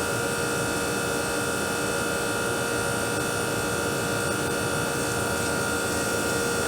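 Air-conditioning condensing unit running, a steady mechanical hum and buzz with a constant whine, from a 2-ton R-410A system.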